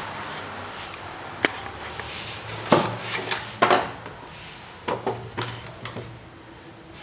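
A handful of sharp knocks and clatters, hard objects set down and handled against wood, irregularly spaced over several seconds.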